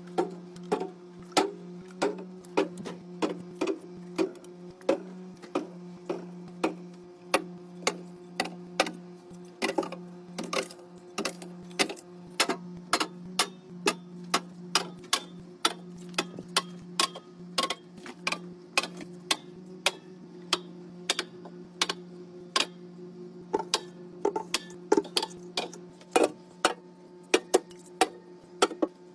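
Drink cans and bottles being set into a fridge one after another: a quick, uneven run of sharp clinks and taps over a steady low hum.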